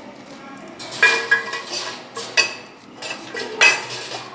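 Stainless-steel wire loading basket and metal items in a vertical autoclave chamber clinking and rattling as they are handled and lifted out by hand: a few sharp metallic knocks with a brief ring, the loudest about a second in and about three and a half seconds in.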